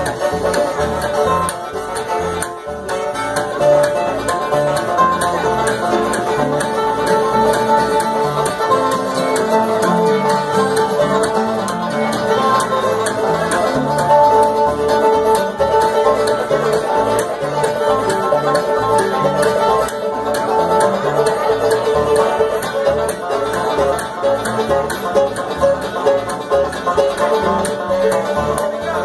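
Live bluegrass band playing an instrumental passage: banjo picking over acoustic guitar, mandolin and upright bass.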